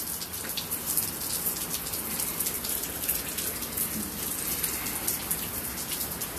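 Steady rain falling on wet pavement: an even hiss made of many small drop hits.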